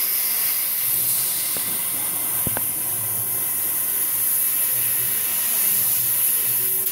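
CO2 laser cutting machine cutting sheet metal, its assist gas hissing steadily out of the cutting-head nozzle; the hiss cuts off right at the end as the cut finishes. Two faint clicks come about one and a half and two and a half seconds in.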